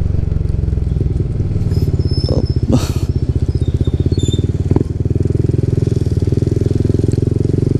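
Yamaha NMAX 155 scooter's single-cylinder four-stroke engine running steadily while riding along, heard from the rider's seat as a continuous low pulsing drone. A brief rush of noise comes about three seconds in.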